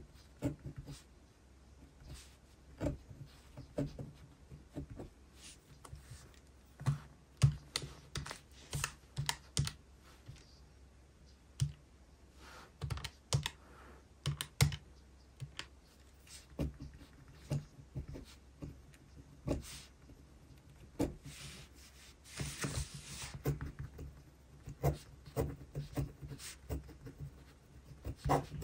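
Keys of a Casio scientific calculator being pressed in irregular runs of small clicks, mixed with a pen tapping and scratching on paper. About two-thirds of the way through there is a scratchy rustle lasting about a second.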